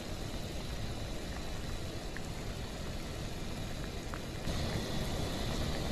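Pot of fish-cake soup boiling: a steady, dense bubbling. A higher hiss joins about two-thirds of the way through.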